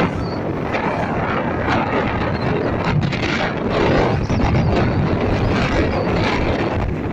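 Wind rushing over the microphone of a moving motorcycle, with the bike's engine running underneath.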